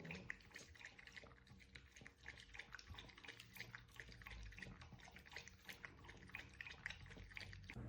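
Faint dripping and trickling water from a cat water fountain, many small irregular drips.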